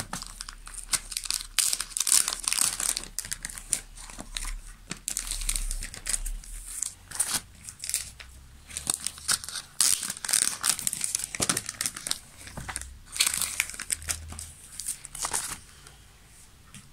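Thin plastic comic-book bags crinkling and rustling in the hands as comics are slid into them and the adhesive flaps are sealed, in irregular bursts.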